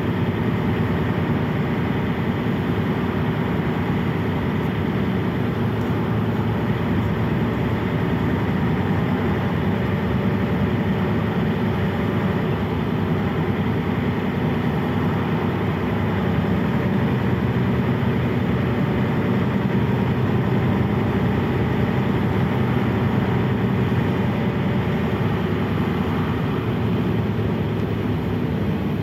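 Mercedes-Benz O 405 city bus's diesel engine running steadily, heard from inside the passenger cabin as a deep, even drone with road and body noise. It swells slightly around the middle and eases a little near the end.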